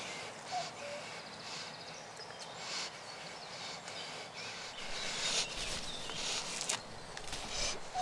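Woodland ambience with a bird's short two-note chirp under a second in, and repeated short bursts of hissing breath through the nose from a person whose mouth is gagged with cling film.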